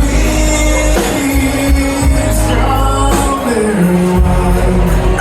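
Live band playing loudly, with a singer's voice over heavy bass and drums.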